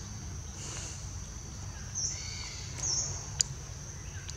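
Outdoor ambience: a steady high-pitched insect drone, with a few short chirps over it and a single sharp click about three and a half seconds in.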